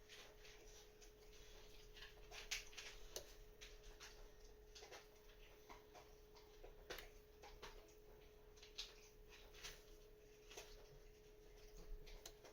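Faint, irregular metallic clicks and short scrapes of a cheap disc detainer pick turning the discs inside a disc detainer lock, over a steady faint hum.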